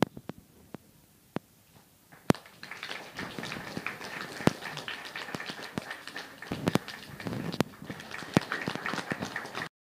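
Audience applauding, starting about two and a half seconds in after a few sharp knocks, then cutting off suddenly near the end.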